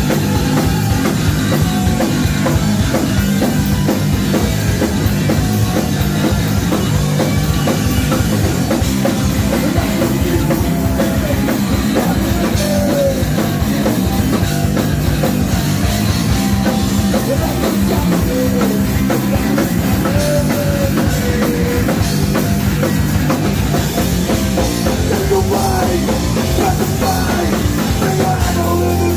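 Live punk rock band playing loud: drum kit and electric guitars, with the singer's vocals at times.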